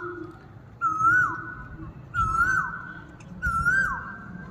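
Asian koel (koyal) calling: a clear, swooping 'ku-oo' note that rises and then falls away, repeated about every one and a half seconds, three times.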